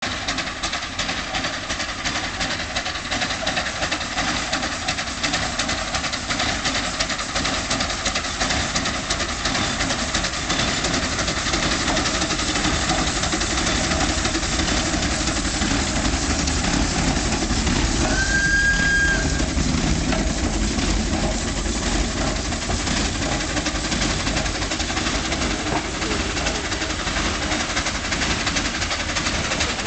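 Small vertical-boiler steam locomotive, Coffee Pot, running past at low speed with a goods wagon, its steam and running noise a steady hiss that grows louder as it passes. A brief steam whistle sounds about two-thirds of the way through.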